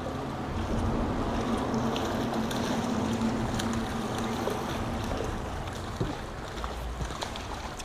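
Water and wind noise around a small fishing boat, with a low steady hum for the first few seconds and a few faint clicks.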